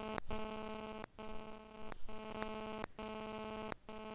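Steady electrical hum with a buzzy set of overtones, broken by short dropouts a little less than once a second.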